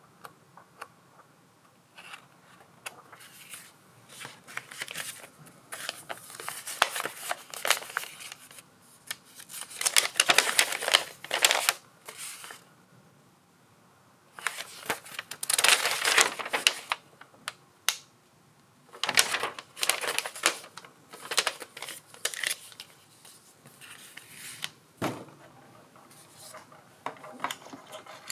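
Paper rustling and crackling in bursts as the pages of an instruction manual are leafed through and a folded printed sheet is unfolded and handled, with a single thump near the end.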